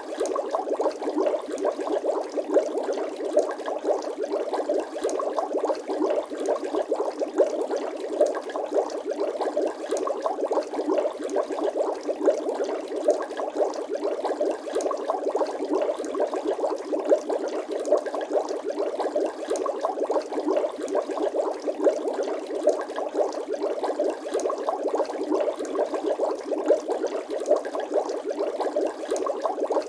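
Continuous bubbling water: a dense stream of small rapid pops and gurgles at a steady level, with no low end.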